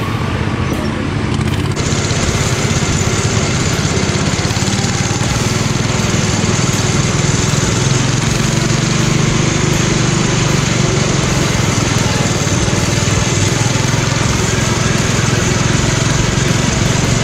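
Riding lawn mower engine running steadily and loud, close to the microphone, with a hissy noise layer that brightens about two seconds in.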